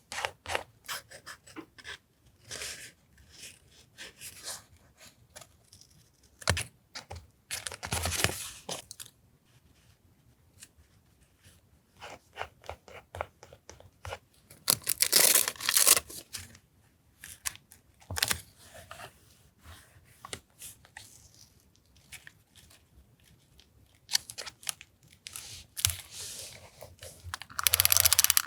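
Paper and journaling materials being handled for a collage: many short scratchy rustles and taps, with a few longer tearing or peeling sounds about 8 s, 15 s and 28 s in.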